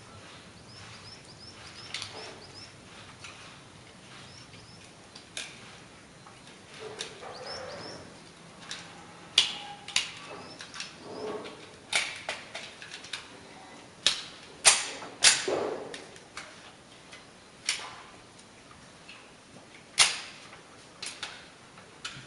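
Scattered sharp metallic clicks and clacks of .45 ACP pistols being loaded and handled, with magazines seated and slides let go. The loudest clacks come in the middle and near the end, each with a short ringing echo. Small birds chirp at times in between.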